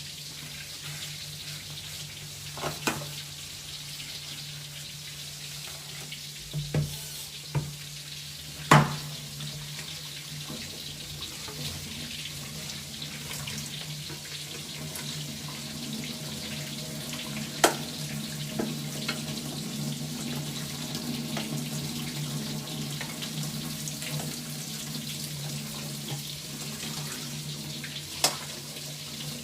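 Steady hiss of kitchen work, over a low steady hum, broken by a few sharp clanks, the loudest about nine seconds in.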